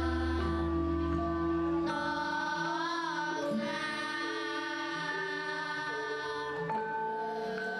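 Children's choir of girls singing a Javanese song in long held notes and chords, one voice wavering about three seconds in. A deep held bass note sounds under the voices and stops about two seconds in.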